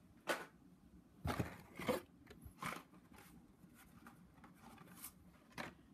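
Faint handling of carded Hot Wheels blister packs: about six short plastic crackles and taps spread over a few seconds.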